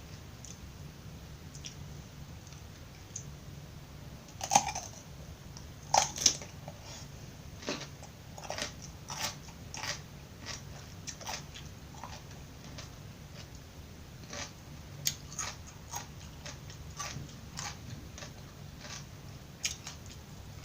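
Close-miked bites into raw cucumber: a few loud crunches about four and six seconds in, then a long run of smaller crunches as it is chewed.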